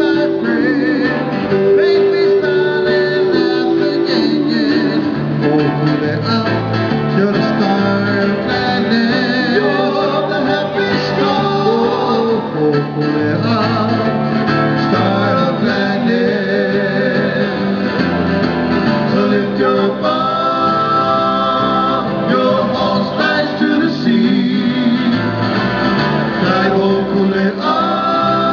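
Live Hawaiian music: acoustic guitar strumming with singing over it, the held notes wavering.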